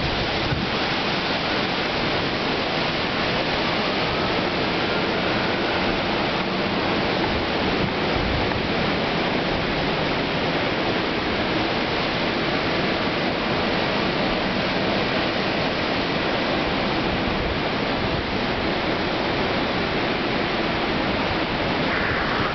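Hurricane Sandy's storm wind blowing hard through trees: a loud, steady, unbroken rush of noise.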